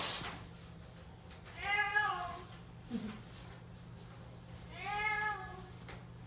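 Munchkin cat meowing twice, two drawn-out calls that rise and fall in pitch, a few seconds apart: grumbling, complaining meows, as the owner takes them.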